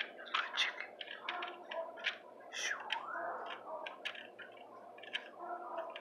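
Rooster pecking at dirt ground: a rapid, irregular run of sharp beak clicks, with a few short low clucks mixed in.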